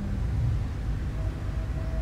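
Low steady rumble of road traffic, with a vehicle engine's hum dying away at the very start and a faint steady whine joining about a second in.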